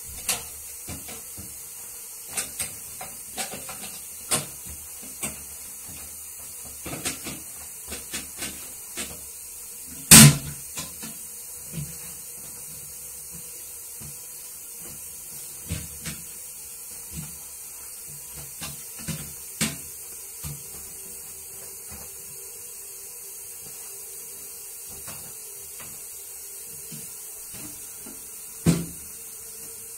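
Scattered knocks, clicks and rubbing from a toilet being cleaned by hand in rubber gloves, with one loud knock about ten seconds in and another near the end. A faint steady hum comes in about two-thirds of the way through.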